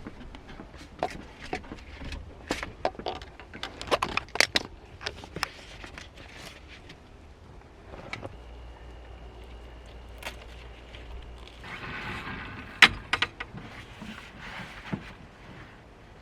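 Irregular clicks, knocks and light clattering, like small objects being handled. A short rushing noise and a sharp knock come about twelve to thirteen seconds in.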